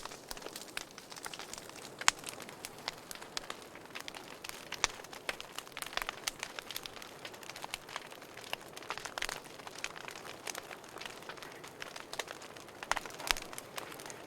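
Wood fire burning in a fireplace: irregular crackles and small pops over a soft steady hiss, with a few louder snaps scattered through.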